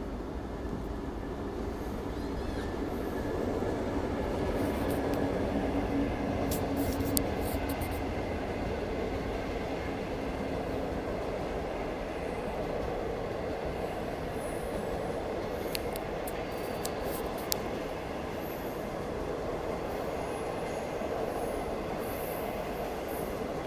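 A DF4B diesel-electric locomotive hauling passenger coaches passes at speed, its engine running under the rumble of steel wheels on the rails, loudest a few seconds in as the locomotive goes by. A long string of coaches then keeps rolling past with steady rail noise and a few sharp high clicks from the wheels.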